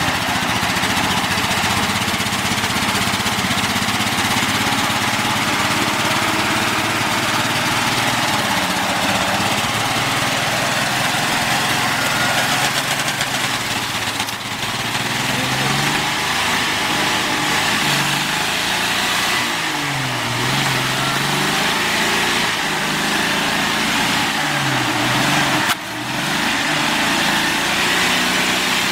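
Off-road vehicle engine working under load, its pitch repeatedly dropping and rising as the throttle is worked, over a steady rushing noise.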